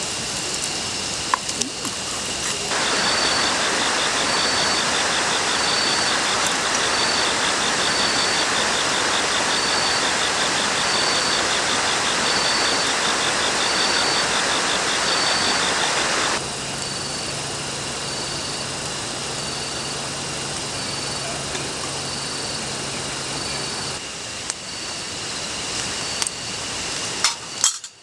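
Meat sizzling steadily on a camp grill. The sizzle gets louder about three seconds in and drops back about sixteen seconds in.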